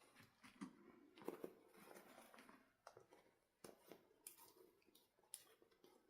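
Faint handling noises: scattered light clicks and rustling of small objects being moved and manipulated, with a few sharper clicks, the clearest near the middle and about a second before the end.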